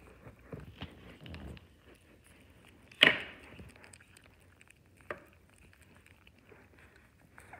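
Kittens crunching dry kibble, a run of faint small clicks, with one sharp knock about three seconds in and a smaller click about two seconds later.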